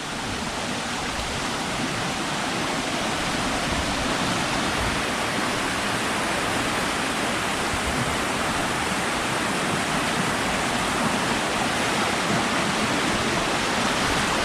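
Rushing water of a waterfall, a steady, dense roar that grows a little louder over the first few seconds.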